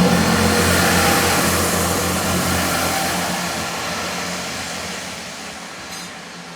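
A train running past and moving away, its low engine drone and rushing wheel noise fading steadily.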